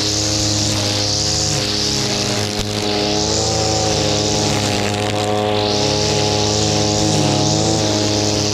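Shindaiwa two-stroke brushcutter running at high revs, its nylon line head cutting grass. A high hiss swells and fades every few seconds as the head sweeps back and forth. Background music plays underneath.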